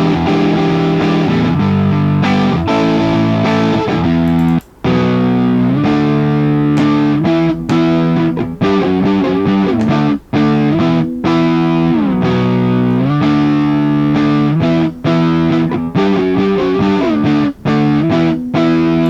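Distorted electric guitar playing sustained chords that change every second or so, driven into output-stage breakup by a Power Baby amp pedal and recorded direct through a cabinet impulse response. The Presence control is at minimum, so the tone is on the dark side. The sound cuts out briefly about five seconds in and again about ten seconds in.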